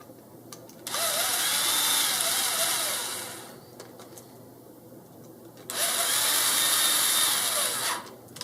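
Small power driver running screws in twice, each run lasting about two and a half seconds with a slightly changing motor whine, tightening M3 x 12 button-head screws that fasten a block to a bumper brace.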